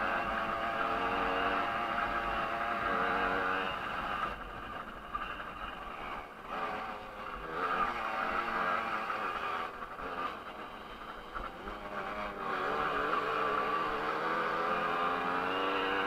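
Small single-cylinder two-stroke Jawa 50 moped engine racing on a dirt track, heard from on the bike: running hard, eased off twice, about a third and two thirds of the way through, then opened up again each time.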